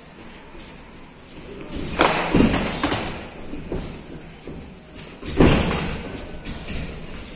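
Dull thumps from two young fighters sparring in a Muay Thai ring, their blows and footwork on the canvas: a quick cluster of thuds about two seconds in and one heavier thump about five and a half seconds in.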